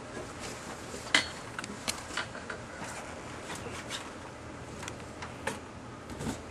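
Scattered light clicks and knocks of equipment being handled while the Corebox slurry-and-core catcher is set up, with the sharpest knock about a second in, over a steady low hum.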